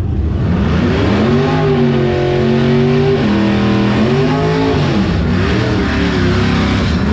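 A high-powered drag race car's engine revving up and held at high revs, its pitch dipping and climbing again a couple of times over a steady low rumble.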